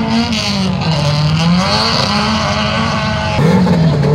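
Race car engine running hard, its pitch holding, dipping about a second in and climbing again. About three and a half seconds in, the sound changes abruptly to a turbocharged Subaru WRX STI hillclimb car at the start line, its engine revved up and down in quick blips.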